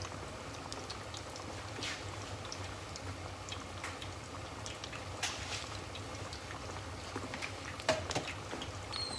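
Batter-coated chicken deep-frying in hot oil: a steady bubbling sizzle with scattered crackles, and a sharper click near the end.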